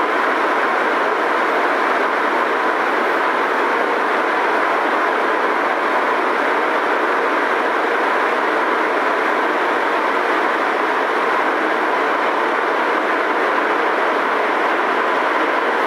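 Prague Metro M1 train running at a steady speed: an even rolling rumble with a thin, constant tone through it.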